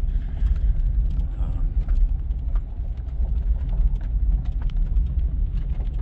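Vehicle driving slowly over a rough dirt road: a steady low rumble of engine and road noise with frequent small knocks and rattles from the bumps.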